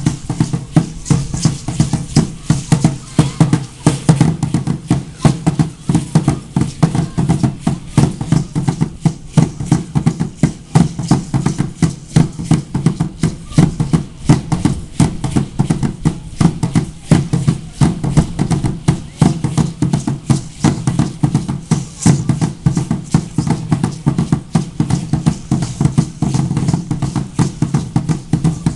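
Ceremonial dance drum beaten in a steady, fast rhythm, with many strikes a second and no pauses.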